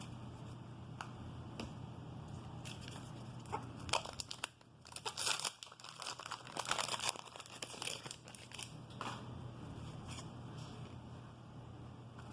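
Paper card-pack wrapper tearing and crinkling as a 1988 Donruss wax pack is opened and its cards handled. The crackle comes in scattered clicks and is thickest about four to seven seconds in.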